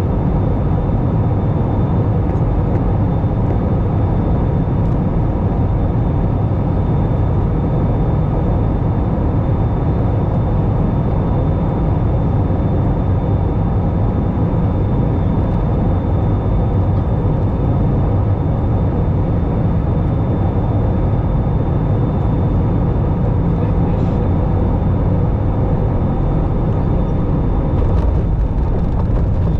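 Steady cabin noise of an Airbus A320 heard from inside the cabin: a constant rush of airflow and engine noise with a faint steady high whine.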